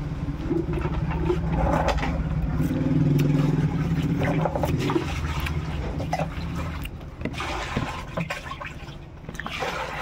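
Sucking and chewing as ripe mango flesh is eaten off the fibrous seed, with a low steady rumble underneath.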